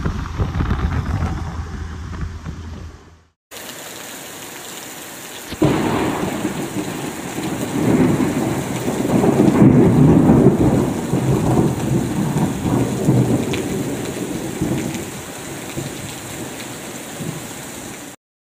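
Gale buffeting the microphone, then after a cut steady heavy rain. A long peal of thunder breaks suddenly about five and a half seconds in, is loudest a few seconds later, and slowly dies away under the rain.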